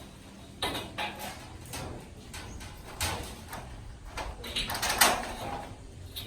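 Irregular knocks, clanks and scrapes of ceiling installation work on metal furring, the loudest clank about five seconds in.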